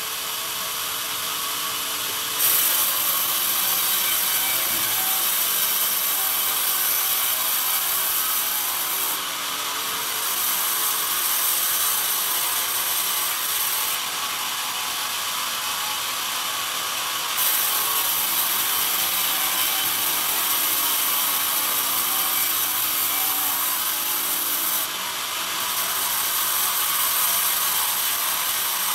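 A band sawmill's blade runs steadily through a pine timber, sawing off a thin plank with a continuous hiss. The high edge of the hiss drops away for a few seconds several times and then comes back louder.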